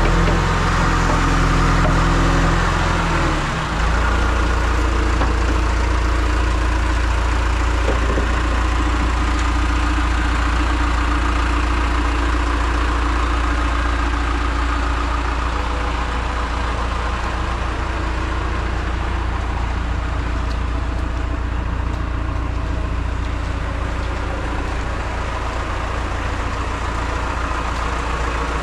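John Deere 310SE loader backhoe's four-cylinder diesel engine running steadily. About three and a half seconds in, its speed drops to a lower, even idle.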